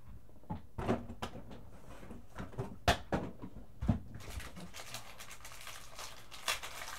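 Hands opening a cardboard trading-card box and its contents: scattered sharp taps and knocks with light rustling of packaging. The loudest knock is about three seconds in, and there are others near one, four and six and a half seconds.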